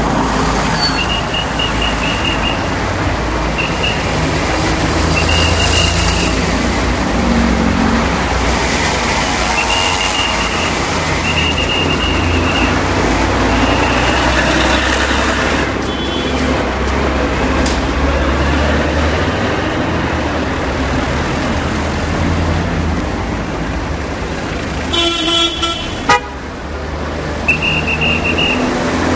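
City street traffic: vehicle engines running in a steady rumble, with a pea whistle blown in short trilling blasts several times, mostly in the first half and once more near the end. A car horn honks briefly near the end.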